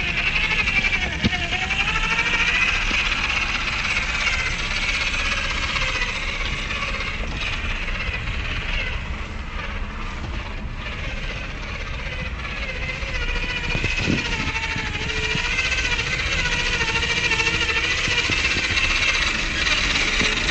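Small RC crawler's electric motor and two-speed gearbox whining as it drives through snow. The pitch wavers up and down as the throttle and load change.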